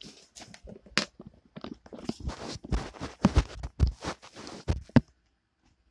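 Handling noise of a camera being moved and propped up: irregular bumps, rustles and scrapes against the microphone, with sharp knocks about a second in and near five seconds, then it stops.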